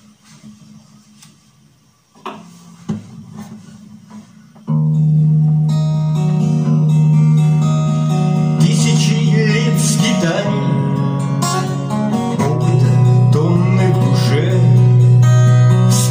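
A few faint knocks and rustles, then about five seconds in an acoustic guitar suddenly starts playing the introduction to a song.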